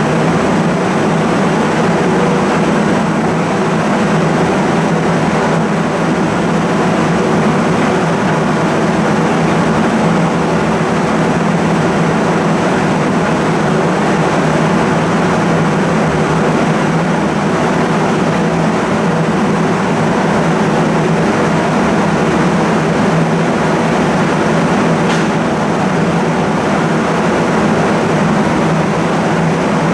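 Wind-generating fan of a laboratory wave flume running steadily: a constant loud rushing noise with a low hum of several steady tones, as strong wind is driven over breaking waves.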